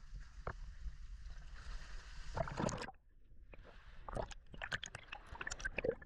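Sea water sloshing and splashing right at the camera as a freediver swims, with gurgling and quick bubbly clicks. About halfway through the sound briefly goes dull and muffled, then the splashing and bubbling pick up again.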